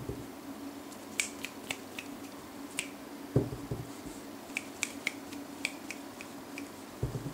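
A dozen or so sharp, snapping clicks, scattered irregularly in two clusters, with a dull thump about three seconds in and another near the end, over a faint steady low hum.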